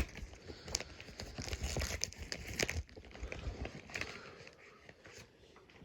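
Packaging being opened by hand: irregular crinkling, tearing and rustling with sharp clicks, beginning with a sharp click. The handling is busiest for about three seconds, then thins to fainter rustles.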